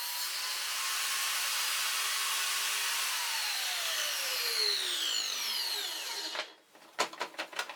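Table saw motor and blade running, then switched off and coasting down with a falling whine that dies away after about six seconds. A few sharp clicks follow near the end.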